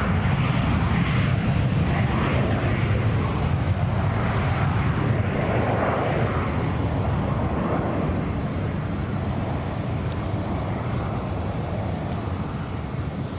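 Airplane engine noise, steady and slowly fading as the aircraft moves away.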